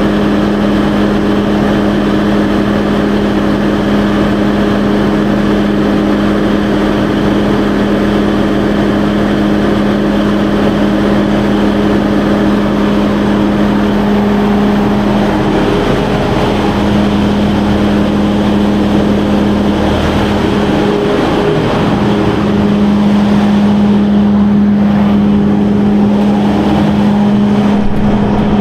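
Large Perkins diesel generator engine running steadily with a strong, even hum, its note wavering briefly twice in the second half before settling again.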